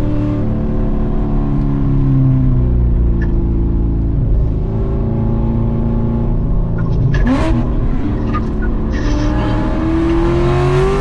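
C7 Corvette's 6.2-litre V8 with a stage 4 cam, run hard in gear. The engine note holds fairly level at first, has a brief sharp rise about seven seconds in, then climbs steadily as the car accelerates near the end.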